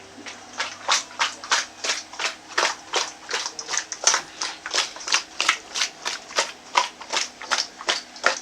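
Lidded shaker container being shaken hard in a steady rhythm, about three shakes a second, the diced pork and seasoning inside knocking against its walls as they mix and coat the meat.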